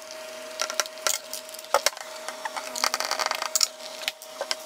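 Screwdriver clicking and scraping as screws are backed out of the base of a Harman Kardon Onyx Studio 6 speaker, with small clicks and taps of handling and a denser run of clicks and rubbing about three seconds in, over a steady faint tone.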